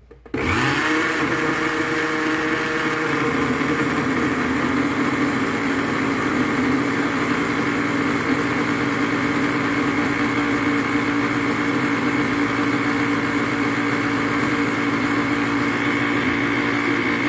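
Electric countertop blender motor switched on, running steadily at high speed while it blends the liquid ingredients of a cake batter (butter, eggs, lemon juice and milk), then switched off near the end.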